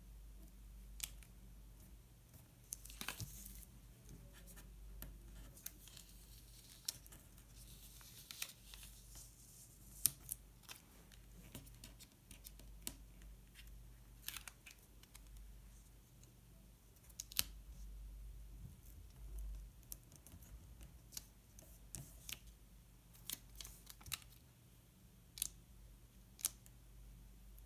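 Faint sounds of paper stickers and planner pages being handled: scattered small clicks and taps, with brief scratchy rustles about three and eight seconds in.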